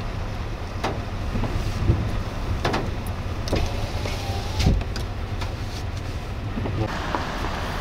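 Heavy rain falling steadily over a low steady rumble, with several sharp taps of large drops striking close by.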